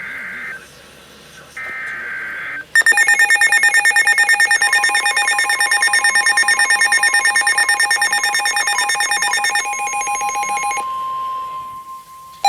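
Two short bursts of the Emergency Alert System's SAME header data, a buzzy digital screech. Then, about three seconds in, several NOAA weather radios' alert alarms start beeping rapidly together. A steady weather-radio warning tone joins them a couple of seconds later. The radios' alarms drop out one after another near the end while the steady tone keeps sounding.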